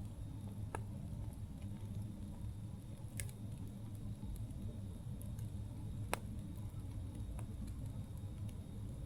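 Campfire burning with a steady low rumble and a few sharp crackles and pops from the burning wood, the loudest about six seconds in.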